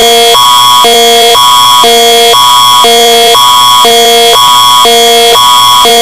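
Canadian Alerting Attention Signal from a mock emergency alert, very loud: an electronic tone that switches between a high chord and a low chord every half second over a constant high tone.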